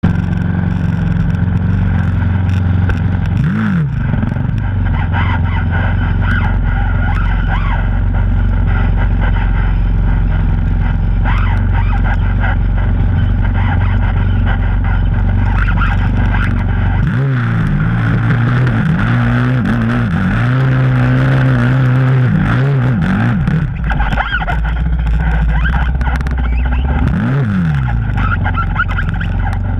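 Honda TRX450ER quad's single-cylinder four-stroke engine running hard while riding through sand, the revs rising and falling: once about four seconds in, in a quick run of repeated revs in the middle, and again near the end.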